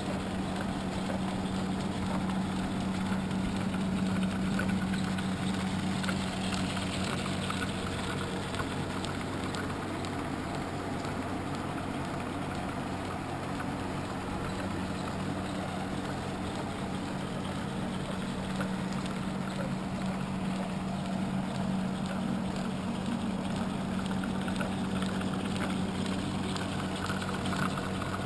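Belt-driven glass-cutting and grinding wheels of an old cutting shop running steadily: a constant low hum with a whirring, rushing noise over it.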